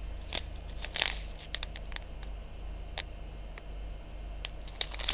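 Small plastic bags of diamond-painting drills being handled: scattered light clicks and ticks, with brief crinkles of plastic about a second in and again near the end.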